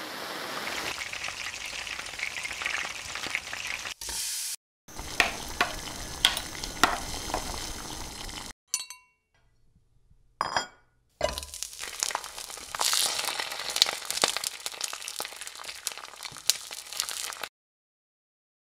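Crackling hiss full of sharp clicks, in several segments that cut off abruptly with silent gaps between them and a short burst in the middle.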